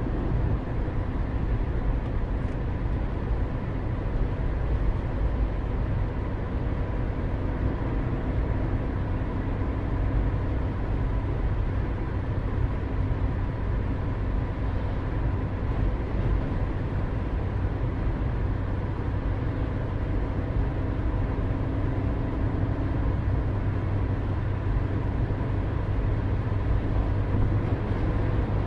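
Steady low rumble of distant town traffic, with a few faint steady hums over it.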